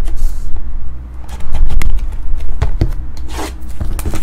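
Cardboard trading-card hobby boxes being handled and shifted on a table: scraping, rubbing and light knocks of cardboard, over a steady low hum.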